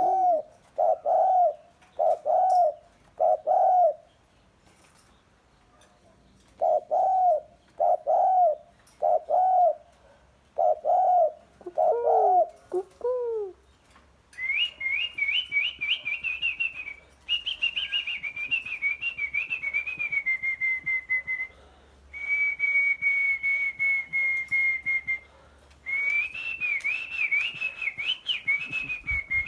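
Bird calls: a low, repeated hooting call, four notes, then after a pause about six more. From about halfway a high warbling whistle takes over and runs on, at one point held on a single slightly falling note.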